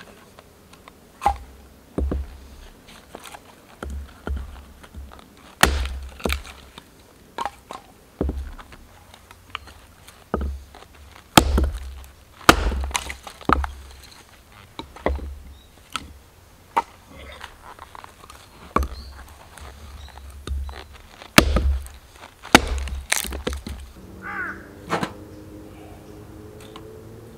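Wood being chopped and split: a string of sharp cracks and knocks, each with a dull thud beneath, coming irregularly about once a second.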